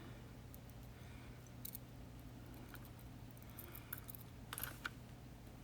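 Faint, light metallic clicks of the tiny pins and springs of a disassembled Yale 2000 Plus lock cylinder being handled, with a few scattered ticks and a small cluster about four to five seconds in, over a steady low hum.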